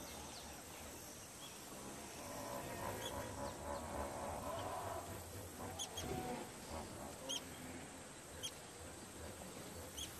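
Short, high bird chirps, one every second or so from about three seconds in, over faint wild outdoor background noise.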